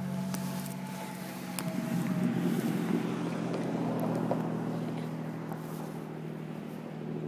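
Car engine idling with a steady low hum; a rush of noise swells over it about two seconds in and fades again.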